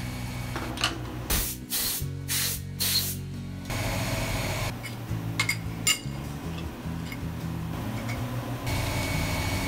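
Compressed-air blow gun hissing in four short blasts, then two longer blasts later on, clearing cutting chips off freshly machined aluminium chainrings. A few sharp metallic clinks as the parts are handled.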